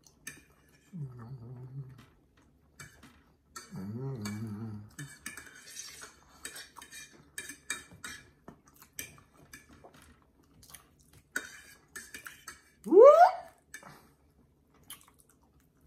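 Metal forks clinking and scraping on plates while eating, with two low closed-mouth hums in the first half. Near the end comes a loud, short voice sound sliding upward in pitch.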